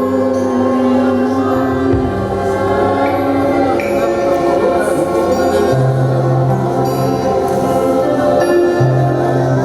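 Slow worship music of long held chords with choir-like voices, its bass note shifting a couple of times.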